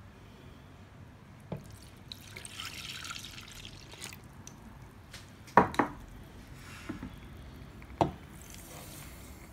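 Milk poured from a measuring cup into a mixing bowl, splashing for about two seconds. It is followed by a few sharp knocks against the bowl, and near the end a soft hiss of sugar being poured in.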